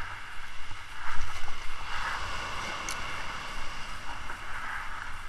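Wind buffeting the microphone in an uneven low rumble, over a steady hiss of surf on the beach.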